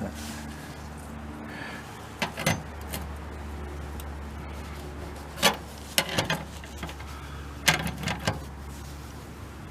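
Irregular sharp metal clicks and knocks, some in quick clusters of three or four, from hand tools and small latch parts being handled while a fuel filler door latch is fitted on a VW split-window bus. A steady low hum runs underneath.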